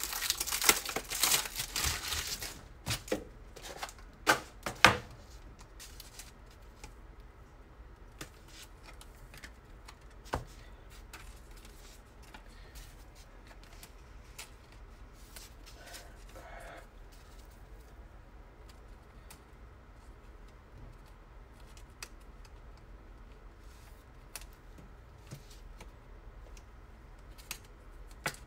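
Clear plastic card sleeves crinkling and rustling as trading cards are slid into them, loudest and densest in the first two seconds or so. A few sharp clicks follow, then only faint, scattered plastic rustles and ticks.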